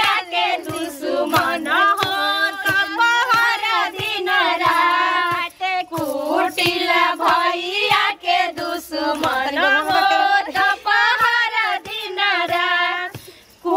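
Several women singing a folk song together while pounding a long wooden pestle on the ground, its strikes giving regular knocks under the singing. This is the song sung while the Godhan is pounded.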